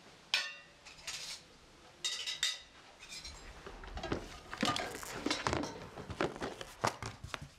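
Small hard objects clinking and clattering as they are handled. There is a sharp ringing clink about half a second in and a few more near two seconds, then a busy run of light clicks and rattles from about three seconds on.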